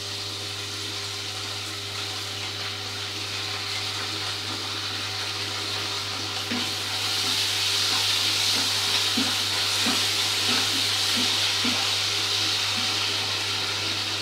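Capsicum and masala sizzling in a hot frying pan as tomato sauce is squeezed in and stirred with a spatula. The steady hiss swells about six seconds in, with a few faint spatula knocks, over a steady low hum.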